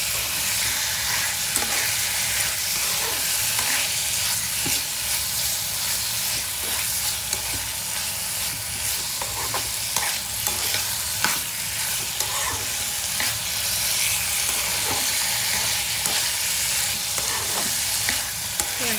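Boneless chicken pieces sizzling in hot olive oil in a frying pan, with a steady hiss and scattered short clicks as a metal spoon stirs and scrapes them around the pan.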